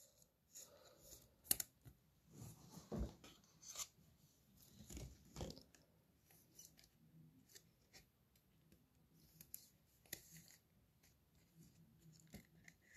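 Near silence with faint rustles and light clicks of a trading card being handled and slipped into a plastic sleeve and a rigid plastic holder. Most of the sounds come in the first half.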